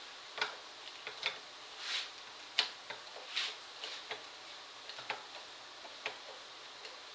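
Irregular metal clicks and short scrapes from a big screwdriver turned with a wrench inside a piston pump's bore, as a very tight piston is being unthreaded. The clicks come unevenly, roughly one every half second to a second, and thin out in the last couple of seconds.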